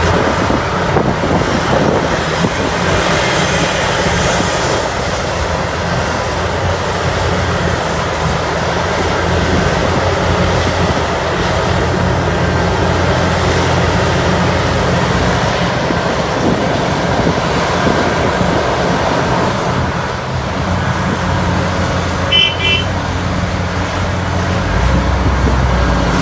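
Heavy diesel mining machinery running steadily: a Caterpillar 6015B hydraulic excavator working with haul trucks, with a low engine rumble and hiss. A quick series of short beeps sounds about 22 seconds in, and the low rumble gets stronger near the end.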